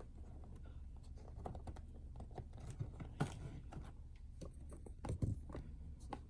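Scattered light taps and clicks of boxed collectibles and packaging being handled and set down, with a few firmer knocks about three and five seconds in, over a low steady hum.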